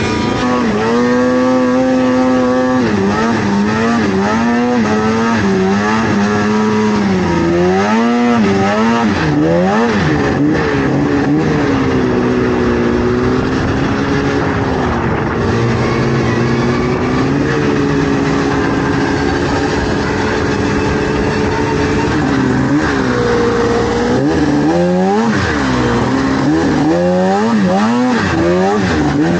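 A vintage snowmobile's two-stroke engine running under the rider, its pitch rising and falling with the throttle: rapid revs up and down near the start and again near the end, and a steadier drone through the middle.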